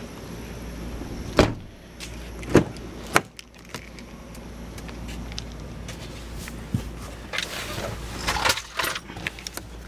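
Car door handling on a Ford Escape: three sharp clunks and clicks in the first few seconds, the loudest about two and a half seconds in, then rustling near the end, over a low steady hum.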